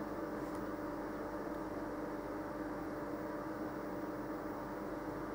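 Steady background hum with a faint hiss, even throughout: room tone and equipment hum picked up by the microphone.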